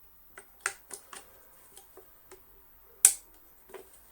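Small hard plastic parts of a Dyson DC24 motor unit clicking and tapping as the locking pivot bar and its spring are worked into place by hand: a handful of light ticks and one sharp click about three seconds in.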